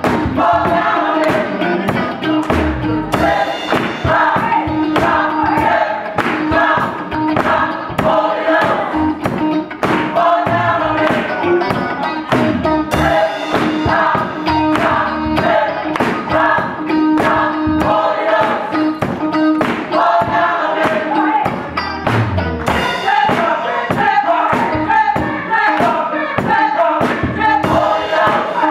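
Gospel choir singing with live band accompaniment and a steady percussive beat.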